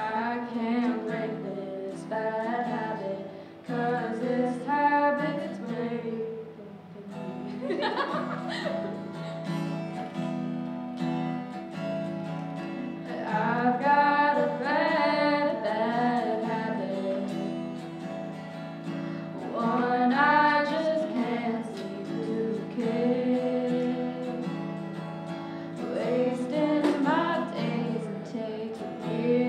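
A singer performing a song live to acoustic guitar accompaniment, holding long notes with a wavering vibrato over steady guitar chords.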